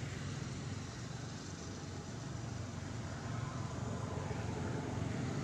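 Steady low rumble of road traffic, with a slow rise and fall partway through as a vehicle goes by.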